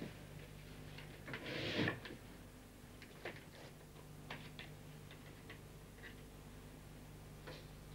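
Faint, irregular small clicks and knocks of objects being handled and set down at a table, with a brief rustle or scrape about a second and a half in.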